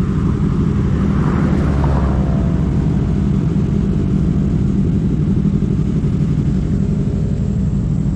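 Motorcycle engine running steadily while riding, a loud, even drone.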